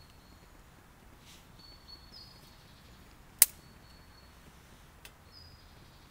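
Quiet woodland background with short high thin bird whistles repeating every couple of seconds. A single sharp click a little over three seconds in is the loudest sound.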